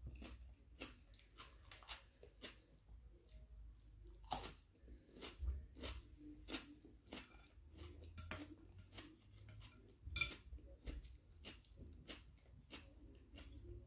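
Close-up chewing of crisp raw vegetables, with irregular crunches several times a second and one louder click about ten seconds in.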